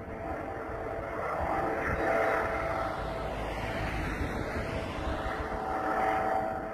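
Air ambulance helicopter flying away, a steady drone of rotor and engine with a faint hum running through it, fading near the end.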